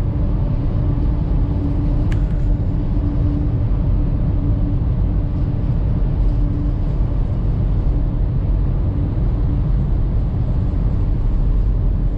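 Steady rumble of a car driving through a road tunnel, engine and tyre noise heard from inside the cabin, with a steady hum running under it. A single brief click about two seconds in.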